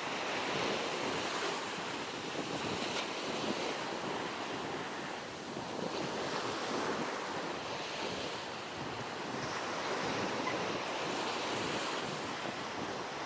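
Sea waves washing onto a sandy beach, a steady surf hiss that swells and eases gently.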